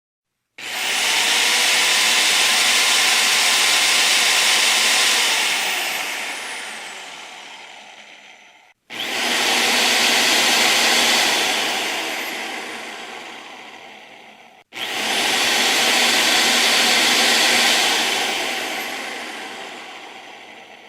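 Electric drill run three times: each time the motor spins up quickly, runs steadily for a few seconds, then winds down slowly after the trigger is let go.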